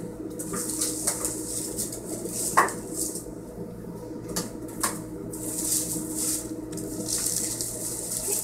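Paper drape rustling in bursts as it is handled and tucked in, with a few sharp clicks, the loudest about two and a half seconds in.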